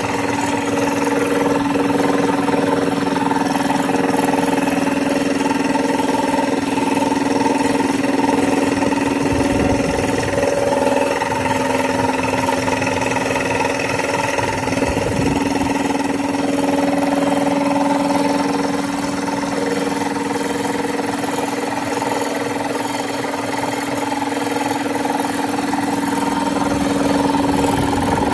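A 60-gallon air compressor running steadily, pumping up its tank. Its three-cylinder, belt-driven pump is turned by a newly fitted 5 HP, 3450 rpm, 220 V electric motor, giving a constant hum.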